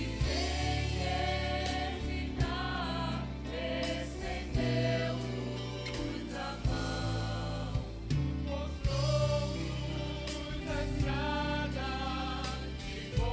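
Church vocal group, mostly women, singing a gospel song together in harmony over instrumental accompaniment with a low bass line and occasional sharp beats.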